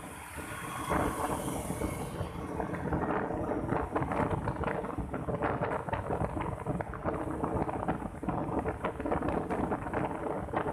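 Wind buffeting the microphone of a camera on a moving motorcycle, a loud rough rumble with crackles, with a steady engine hum underneath.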